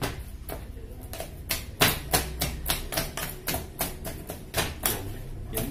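Ripe bananas being mashed by hand in a plastic bowl: a utensil pounds them down with a run of sharp taps and clicks against the bowl, about three or four a second and unevenly spaced, the loudest a little under two seconds in.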